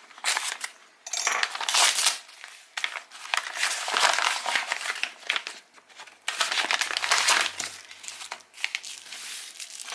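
A taped-up paper envelope being crinkled and torn open by hand, in irregular rustling bursts.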